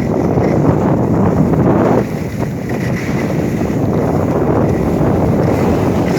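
Loud, steady wind rush buffeting the microphone as a skier descends a slope, easing briefly about two seconds in.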